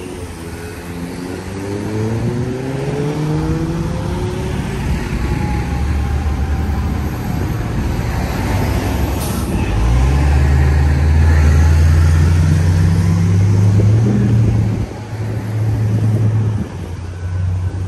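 Road traffic: a motor vehicle accelerates away with its engine note rising over the first few seconds. Then a heavy engine runs close by, loudest from about ten to fifteen seconds in, before dropping away.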